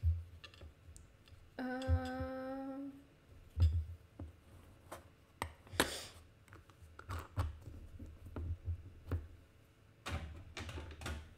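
Soft knocks, thumps and brief rustles of ink-painting supplies being handled on a desk. About two seconds in, a woman hums one steady note for about a second.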